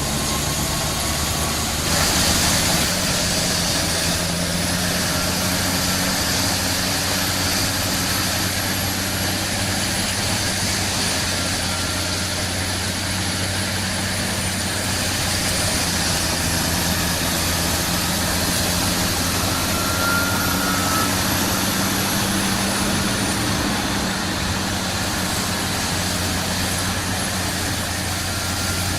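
A forestry mulcher running steadily, its heavy engine droning under a high whine that slowly rises and falls in pitch. There is a brief louder surge of noise about two seconds in.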